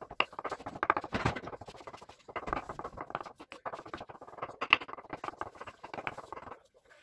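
Kitchen knife rapidly chopping hard-boiled eggs on a wooden cutting board: quick repeated taps of the blade on the board, with a brief pause about two seconds in, stopping near the end.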